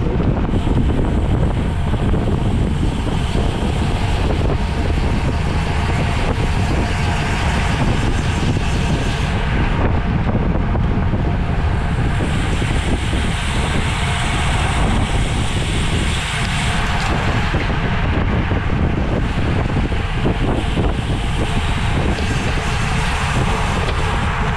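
Steady wind buffeting on a microphone carried on a road bicycle racing at speed, dense and rumbling, with no clear engine or voice.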